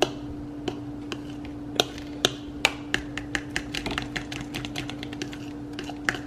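A metal fork beating pancake batter in a mixing bowl, clinking against the bowl's sides in quick, irregular taps, several a second.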